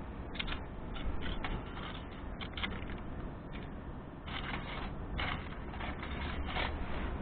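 Dry fallen leaves rustling and crunching as they are crumpled and stuffed into a tiny wood stove, in short irregular bursts, with a steady low rumble underneath.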